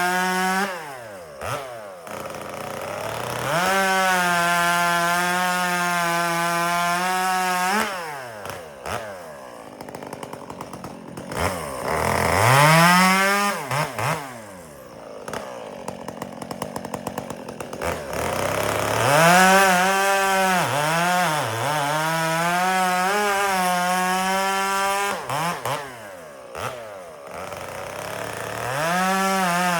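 Gas chainsaw bucking firewood. The engine holds a steady high pitch through three long cuts, about 4 to 8 seconds, 19 to 25 seconds and again near the end. Between the cuts it falls off to a ticking idle and is revved back up once in the middle.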